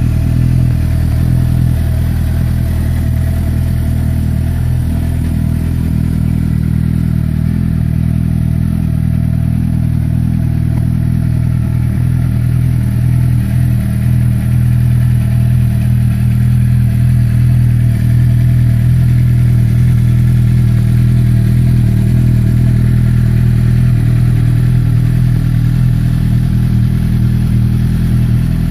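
Suzuki GSX-R 750's inline-four engine idling steadily after a cold start, through a Yoshimura slip-on exhaust.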